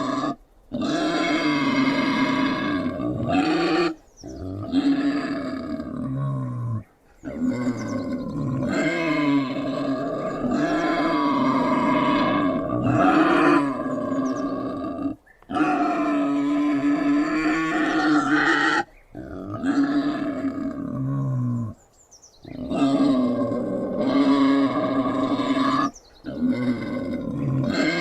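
Wild boar growling and grunting in long, drawn-out calls, several seconds each, broken by short pauses.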